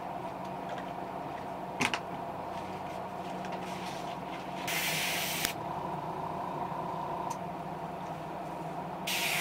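Airbrush giving two short bursts of spray, under a second each and about four seconds apart. These are test sprays while the airbrush is adjusted to put down only a little black. A single light click comes about two seconds in.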